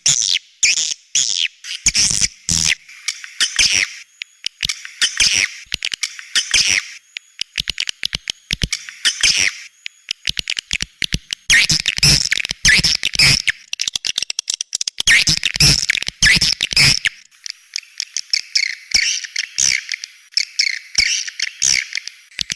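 Swiftlet calls, the 'outside' lure sound played from speakers at swiftlet nest houses: dense, rapid high chirping and twittering in clusters separated by short pauses, with sharp clicks among them.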